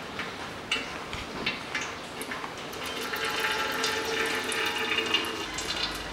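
Used engine oil trickling in a thin stream from the oil filter mount of a Mazda 3's 1.6 engine, with scattered drips, as the old oil drains out.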